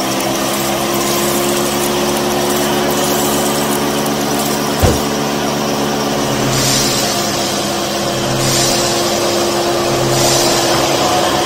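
Small electric motor of a miniature model wheat thresher running with a steady whirring hum. There is one sharp click about five seconds in, and later three stretches of higher rattling hiss come and go as wheat is dropped into the drum.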